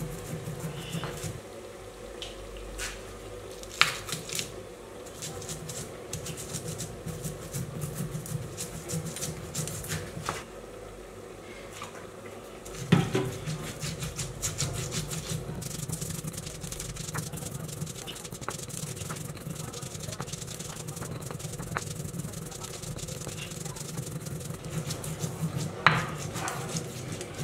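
Spices being ground on a Nepali silauto stone slab with a lohoro stone muller: stone rubbing and scraping over whole coriander seeds and chilli, with rapid crackly clicks and three sharper knocks of stone on stone.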